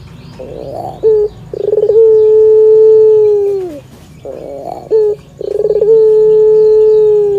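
Puter dove cooing: a quick run of stuttering notes, then a long, steady coo that drops in pitch at its end, heard twice.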